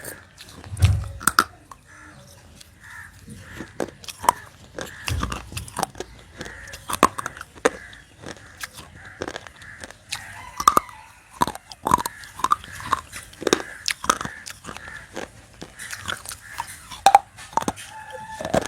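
Close-up biting and chewing of dry, soft baked clay: pieces of a broken clay diya crunched between the teeth, with many sharp, irregular cracks and crumbles.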